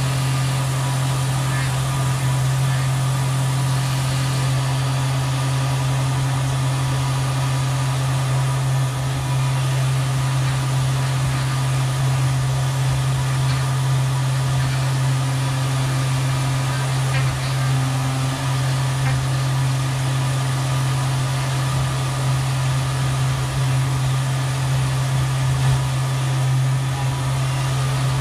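Tormach CNC mill spindle turning a 3/8-inch two-flute end mill at 8000 rpm through semi-finish and finish passes in a metal block, a steady low hum with the hiss and splash of flood coolant over it.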